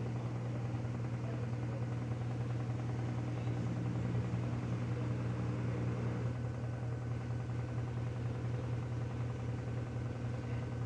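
Washing machine drum spinning at high speed in its spin cycle, spinning water out of the laundry: a steady motor hum, with some higher tones dropping away about six seconds in.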